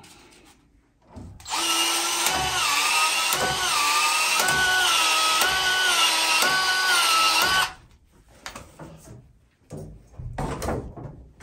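Cordless PEX expansion tool running for about six seconds as its head expands the pipe end, the motor's pitch dipping and recovering about once a second with each expansion cycle, then stopping abruptly. A few light handling knocks follow.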